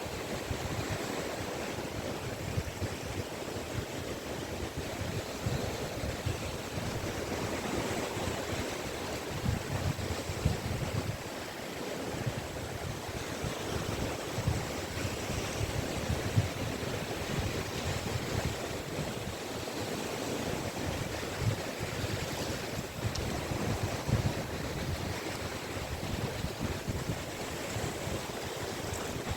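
Caspian Sea waves washing steadily onto a beach, a continuous surf noise with no distinct breaks, and wind buffeting the microphone with a low, uneven rumble.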